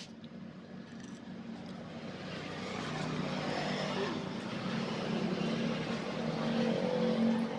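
A motor vehicle engine running steadily, growing louder over several seconds and cutting off suddenly at the end.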